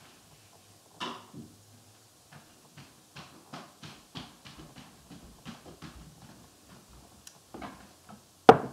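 Footsteps crossing a room, light knocks roughly two a second, then one loud knock close to the microphone near the end.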